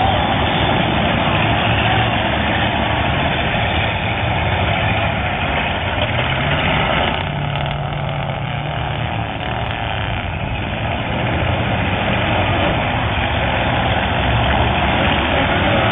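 Demolition derby car engines running loudly and steadily, one revving up about six seconds in.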